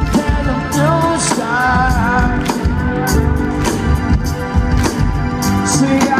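Live rock band playing loudly over a festival PA, with a steady drum beat and a sung melody, heard from within the crowd.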